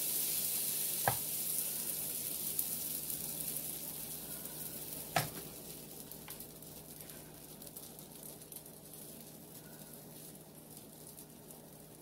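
Pancake batter sizzling on the hot, oiled plates of a Kitchen Selectives mini waffle maker, the hiss dying down steadily as the batter settles. There is a light knock about a second in and a sharper knock about five seconds in.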